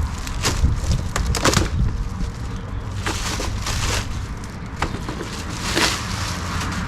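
Plastic bag crinkling and rustling in irregular bursts as it is pulled off a new pressure washer, over a steady low hum.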